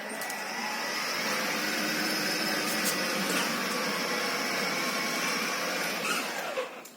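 A motor vehicle's engine running hard at steady speed, a continuous mechanical noise with a faint whine. It drops away near the end.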